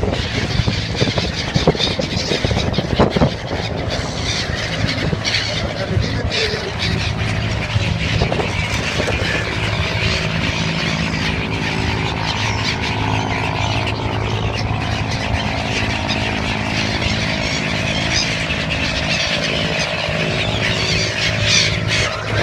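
Dense chorus of many birds calling at once, over a steady low drone.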